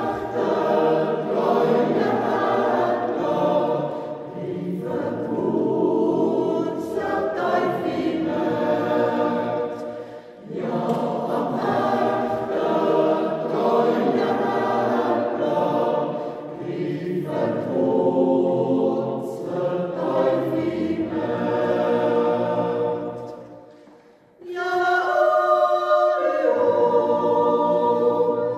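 Mixed Swiss yodel choir singing a Jodellied a cappella in several parts. The singing breaks briefly about ten seconds in and again near the end, then goes on with higher, long held chords.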